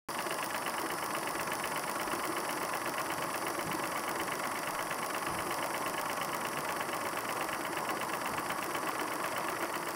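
Small live steam model locomotive running light under its own steam on its first steaming, wheels spinning free on the bench: a rapid, even exhaust beat and the clatter of its valve gear and rods, steady throughout.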